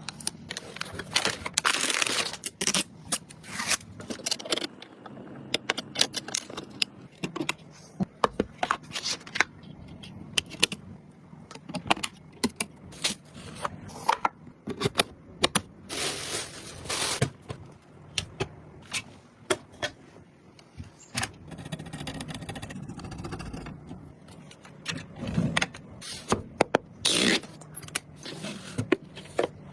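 Computer parts and packaging being handled during a PC build: a run of irregular clicks, taps and scrapes, with a few longer rustling or scraping passes.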